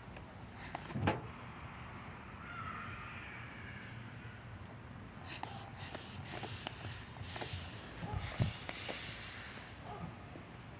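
Inflatable air wedge in a car door being pumped up by hand: a run of airy puffs from the squeeze bulb, about one every half to one second, starting about halfway through. A single knock about a second in.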